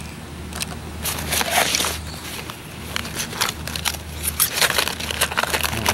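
Hands rummaging in a fabric messenger bag: irregular rustling of the heavy fabric and packaging, with scattered light clicks and knocks as items are moved about.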